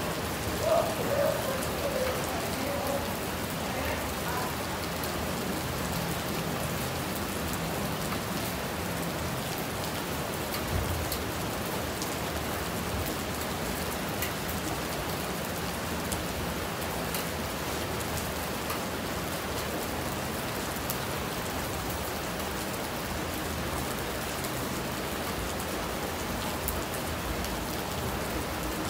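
Steady rain falling, with a small stream running beneath it and a few brief louder sounds in the first couple of seconds.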